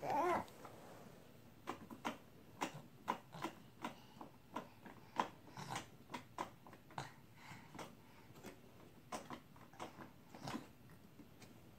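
Toddler's hands tapping and knocking on a plastic baby activity table: a string of irregular short clicks and knocks, about one to two a second. A brief child's vocal sound comes at the very start.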